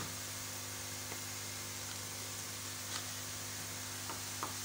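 Steady low electrical hum with a faint hiss. A few faint light clicks come through as a knife scores the soft sesame-and-jaggery brittle in a metal tin.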